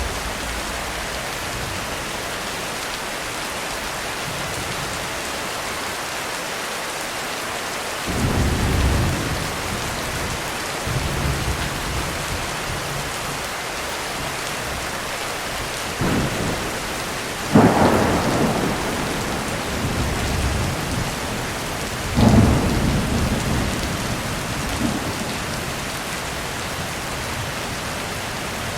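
Thunderstorm: heavy rain hissing steadily while thunder rumbles several times. The loudest, sharpest claps come a little past halfway and again a few seconds later.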